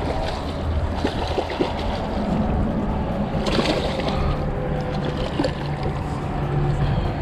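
A small hooked fish splashing and thrashing in shallow water among shoreline rocks as it is drawn in to be grabbed by hand, with a louder splash about three and a half seconds in. A steady low rumble lies under it throughout.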